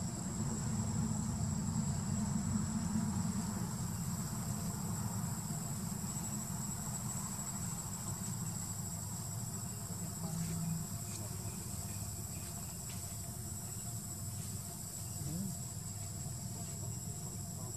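Insects droning steadily with a thin, high whine, over a constant low rumble.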